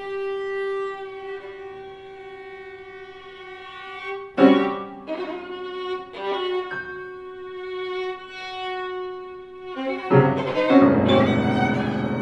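Violin and piano playing classical music. The violin holds one long note for about four seconds, then a sudden loud accent starts a busier passage, and from about ten seconds the two instruments grow loud and full together.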